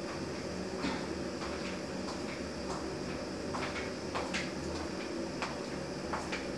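Thick tomato-and-onion curry base simmering in a stainless steel pot, with irregular soft pops and spits over a steady low hum.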